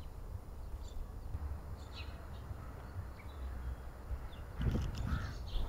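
Outdoor ambience: a steady low rumble with scattered short bird chirps, and a brief rustling scrape near the end.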